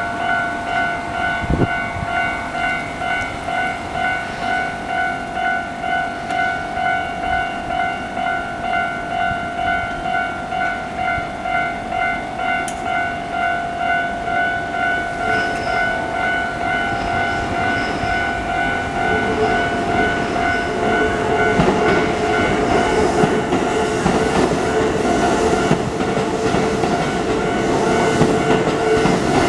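Japanese railway level-crossing alarm ringing its repeated electronic 'kan-kan' tone at a steady pace. From about twenty seconds in, a train passes over the crossing, its wheels clattering over the rail joints along with a steady motor hum.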